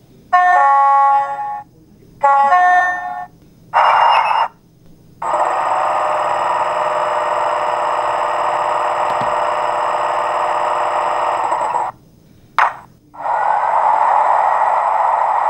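Sampled BR Class 40 diesel locomotive sounds from a Hornby TTS sound decoder. First come two short blasts of several steady tones and a brief burst. Then the air compressor runs steadily for about six seconds, a click follows, and the cooling fan starts up about 13 seconds in and keeps running.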